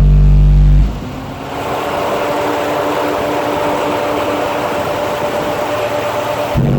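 Two DC Audio 18-inch car subwoofers playing a loud, steady low bass tone that cuts off about a second in, leaving a car's engine running underneath. Near the end the bass tone starts again.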